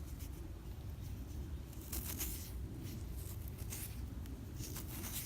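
Soft scratchy rustling of close handling, in two short spells about two seconds in and near the end, over a low steady rumble.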